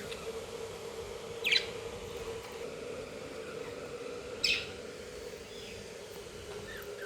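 Budgerigar chirping: two short, sharp chirps about three seconds apart, with a few fainter calls between, over a steady low hum.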